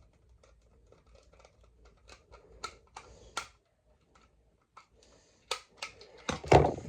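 Plastic Trackmaster toy train pieces being handled and fitted together: a run of light clicks and taps, with a louder knock near the end.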